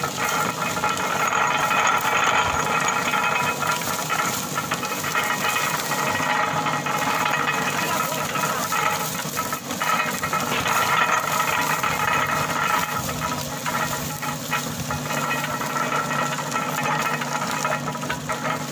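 Belt-driven sugarcane crusher running steadily while cane stalks are fed into its rollers and crushed for juice.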